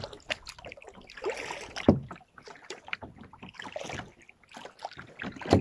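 Kayak paddle dipping and splashing in lake water in uneven strokes, with scattered knocks and two louder thumps, about two seconds in and near the end.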